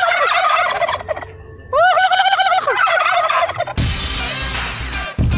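Domestic turkeys gobbling in two bursts, each a rapid warbling call about a second long, several birds overlapping. Upbeat music starts near the end.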